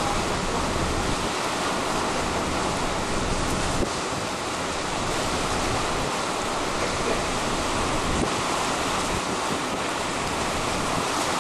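Strong tropical-storm wind blowing steadily, a continuous rushing noise with wind buffeting the microphone.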